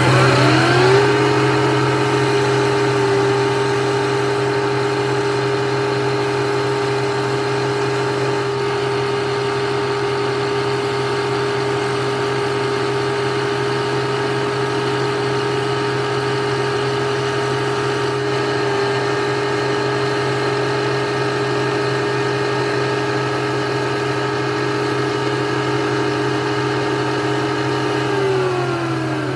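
Lathe motor spinning up to speed in about a second, then running at a steady pitch over a constant low hum, and winding down near the end.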